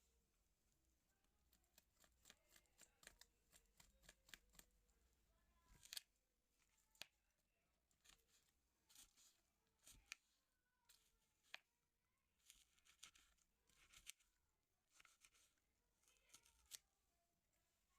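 Faint kitchen food-preparation handling sounds: irregular light clicks and taps mixed with short rustling scrapes, a few sharper clicks among them.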